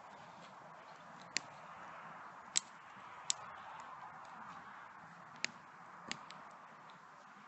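Five sharp clicks or knocks, unevenly spaced, over a steady hiss.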